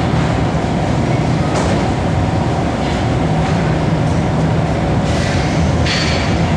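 Ferry's engines running with a steady low rumble and hum. A few brief higher noises come about a second and a half in and again near the end.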